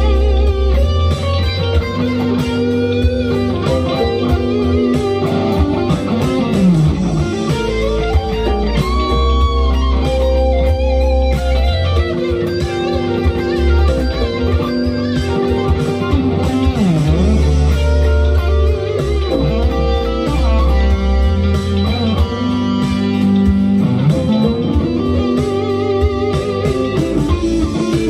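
SG-style solid-body electric guitar played through an amplifier: melodic lead lines with note bends and chords, over a sustained deep bass part.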